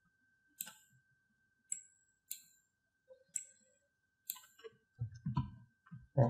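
About five sharp clicks of a computer mouse, roughly one a second, over a faint steady high-pitched whine.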